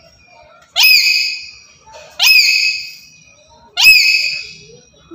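Black-capped lory giving three loud, harsh calls about a second and a half apart, each opening with a quick upward sweep and then trailing off.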